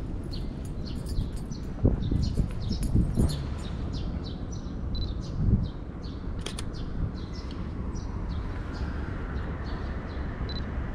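Small birds chirping repeatedly in short, high, falling notes over a steady low background hum. A few low thumps come about two to three seconds in and again near the middle, and a single sharp click about six and a half seconds in.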